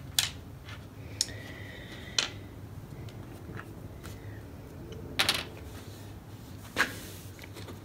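Small metal and plastic parts of a CNC belt tensioner being handled and set down on an MDF board: about five sharp clicks and taps spread out, with a faint thin ringing for a few seconds after the second one.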